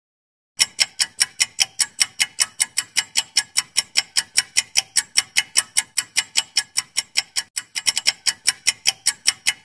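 Countdown-timer clock-tick sound effect: sharp, even ticks about four a second, starting about half a second in.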